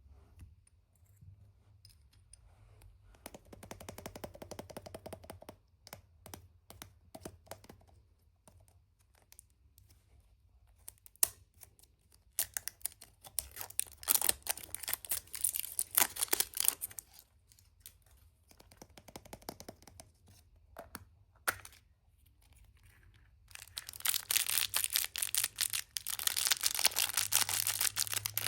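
Surprise-egg packaging being handled and unwrapped: scattered clicks and short crinkling bursts with quiet gaps, turning into steady, dense crinkling for the last few seconds.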